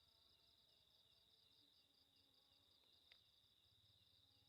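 Near silence with faint night insects chirring: a steady high whine with a fast pulsing trill above it, and one small click about three seconds in.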